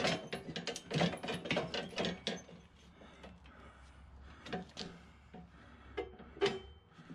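Steel frame of a homemade mower utility bed clanking and rattling against the zero-turn mower's mounting brackets as it is worked into place: a quick run of metal knocks at first, then a few scattered knocks.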